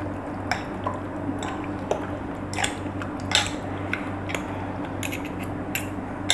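Metal fork stirring chicken pieces in a yogurt marinade inside a glass bowl: irregular clinks of the fork against the glass with wet squelching of the coated chicken.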